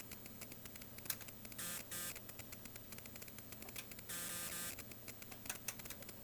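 Faint scattered clicks of knobs or selector switches being turned on bench test equipment while a setting is changed, with two short buzzing bursts, about one and a half and four seconds in.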